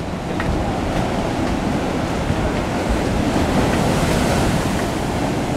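Ocean surf breaking on a sandy beach, a steady wash of noise, with wind on the microphone.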